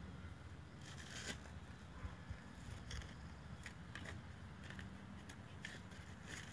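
Plastic toy shovel scraping and scooping sand: short gritty scrapes come irregularly, the loudest about a second in, over a low steady rumble.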